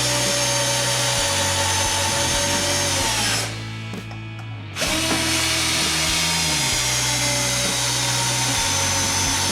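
Cordless drill driver driving a long screw into MDF at full torque. The motor pitch sags under load, then stops about three and a half seconds in. About a second later a drill starts again, rises to speed, and runs steadily.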